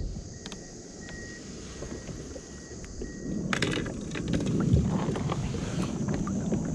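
Wind rumbling on the microphone with a few light clicks, then from about halfway a burst of knocks and rough scraping as a plastic sit-on-top fishing kayak is handled and climbed into.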